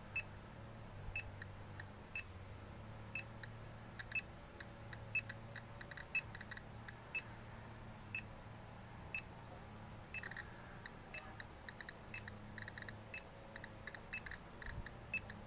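GQ GMC-320 Plus Geiger–Müller counter clicking at a low count rate, sharp short ticks, some evenly about once a second and others at random between: a reading close to background radiation a few centimetres from the uranium-bearing rock.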